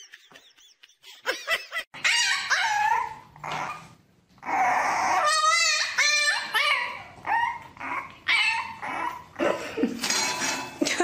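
A puppy giving a long run of high whines and yelps, starting about two seconds in. The calls bend in pitch, some with a rapid warble, and there is a short break about four seconds in.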